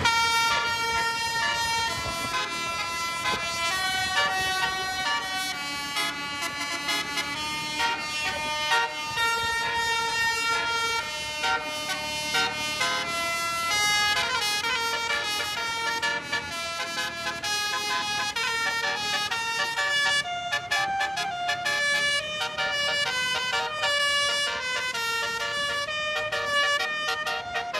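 Basuri (telolet) multi-tone air horn playing a continuous melody, stepping from note to note with each note held for a moment.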